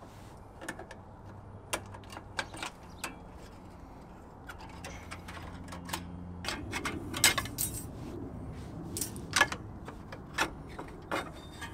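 Irregular sharp metallic clicks and clinks as brake spring pliers work the return springs off a rear drum-brake shoe assembly, steel tool striking spring and backing-plate hardware.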